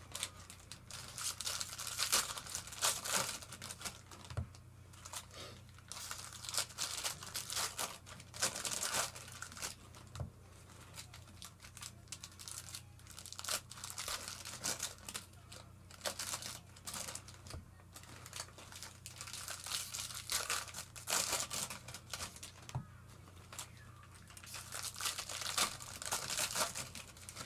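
Foil wrappers of baseball card packs being torn open and crinkled, in irregular bursts of tearing and rustling, over a faint steady low hum.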